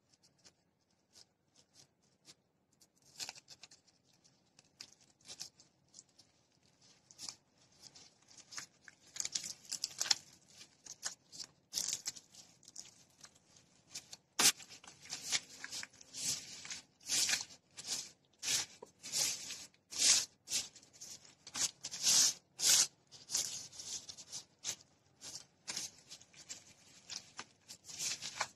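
Rustling, crinkling scrapes from a plastic glove, a bamboo sushi rolling mat and nori as a rice-filled seaweed roll is rolled and pressed by hand. The scrapes come in short, uneven strokes, sparse at first and thicker and louder from about halfway.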